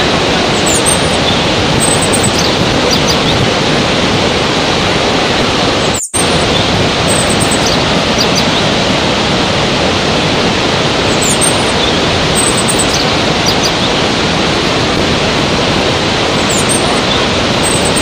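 Waterfall and white-water rapids rushing: a steady, dense noise of falling water with faint high chirps here and there. About six seconds in the sound cuts out for an instant and comes straight back.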